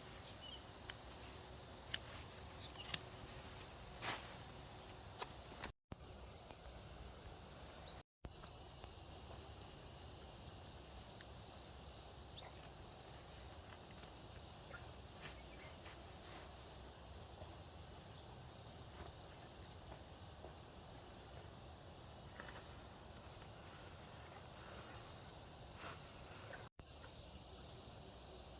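Steady chorus of insects with a high, shrill chirring. There are several sharp clicks or knocks in the first few seconds, and the sound breaks off for an instant three times.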